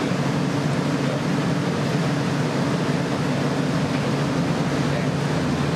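Steady low roar of glassblowing hot-shop equipment, the furnace and glory hole burners with their ventilation, running without a break.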